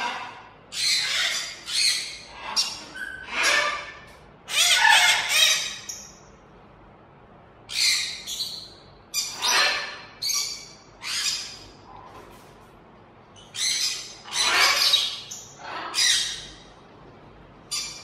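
Macaws squawking: over a dozen loud, harsh screeches in three bouts separated by short pauses.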